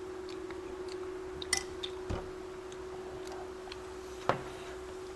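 Quiet tableside eating sounds: a few faint clicks and taps of a spoon and a glass, a low thump a little after two seconds and a sharper tap a little after four, over a steady low hum.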